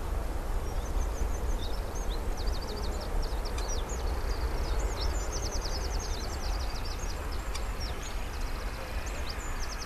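Low, steady rumble of a Boeing 737-700 jet slowing on the runway after touchdown, heard from afar. Over it a small songbird sings high chirps and fast trills throughout.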